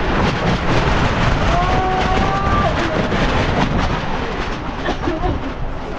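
Loud, steady rushing of floodwater, a dense noise with no rhythm. A voice calls out with a held note about a second and a half in.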